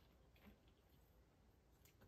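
Near silence: room tone with a couple of faint clicks.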